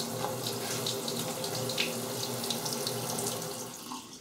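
Kitchen tap running into a stainless steel sink as leeks are washed, fading out near the end.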